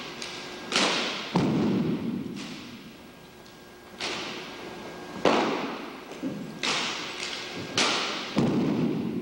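Drill rifles handled in unison by a precision drill squad: about ten sharp slaps and thuds at uneven intervals, each ringing on in the echo of a large hall.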